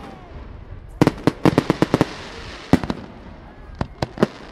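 Aerial firework shells bursting: a quick run of sharp bangs about a second in, a single bang near the middle and a few more near the end, with a hissing crackle between them.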